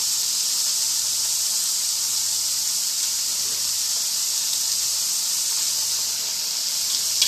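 Freshly added raw potato slices deep-frying in hot oil: a steady high sizzle. A single click near the end.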